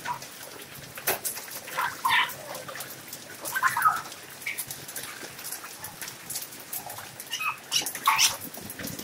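Hailstones striking a wet concrete floor, a scatter of sharp irregular ticks over a hiss of falling rain and hail. A few short high calls, of an animal, stand out about two, four and eight seconds in.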